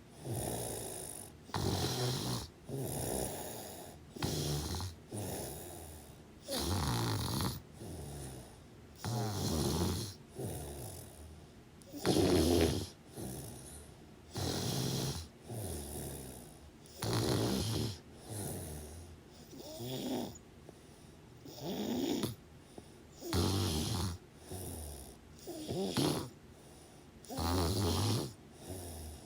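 Loud snoring in a steady rhythm, one rasping snore roughly every second and a bit, with short quiet breaths between.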